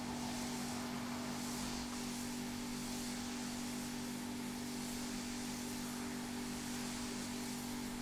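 Steady background hiss with a constant low hum, unchanging throughout; no bird calls.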